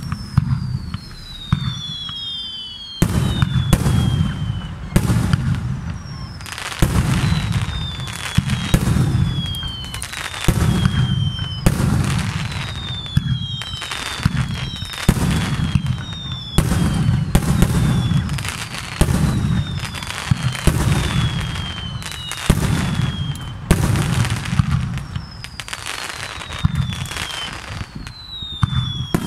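A fireworks display: rapid launches and bursts, with bangs about every second or two over a continuous rumble. Many whistling fireworks glide down in pitch through it.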